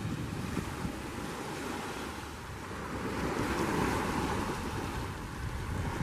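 Small waves breaking and washing up on a sandy beach, the surf swelling louder about halfway through as a wave comes in, with wind buffeting the microphone.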